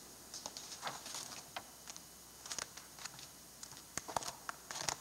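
Faint, scattered rustles and light clicks of papers being gathered up and handled at a lectern.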